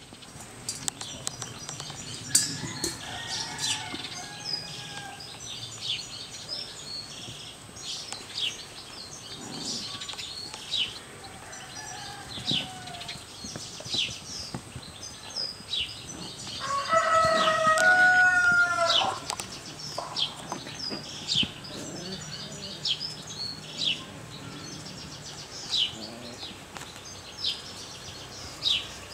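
Animal calls: short, high, falling chirps repeating about once a second, and a longer, louder pitched call lasting about two and a half seconds a little past the middle.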